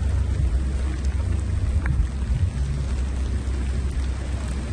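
Wind buffeting the microphone outdoors: a steady, fluctuating low rumble under an even hiss.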